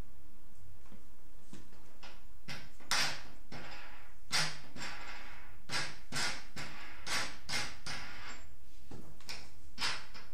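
Handling sounds from a prototype camera being assembled by hand: a string of irregular knocks and short scrapes, about eight, starting a couple of seconds in, over a steady low hum.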